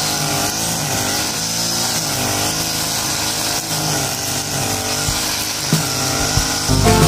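Backpack brush cutter engine running, its pitch wavering up and down as the nylon line cuts grass. Music comes in near the end.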